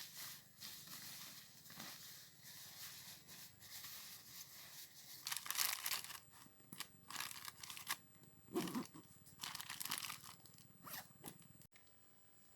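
Irregular rustling and crinkling from things being handled, in uneven bursts, that stops abruptly near the end.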